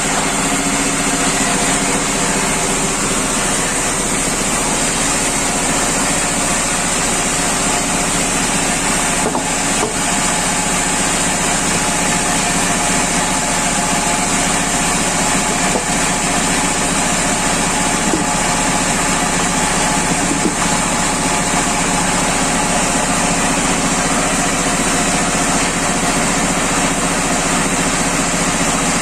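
Sawmill wood-cutting machine running steadily under engine power, a loud even machine noise with a constant high whine.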